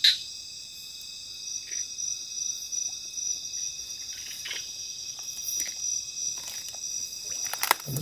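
Night insect chorus of steady, high-pitched trilling on several pitches at once, with a few short splashes and rustles from hands working in shallow water among grass, the sharpest near the end.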